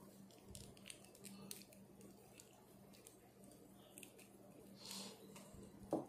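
Faint handling of a plastic action figure: scattered small clicks and rustles over a low steady hum, with a short thump near the end.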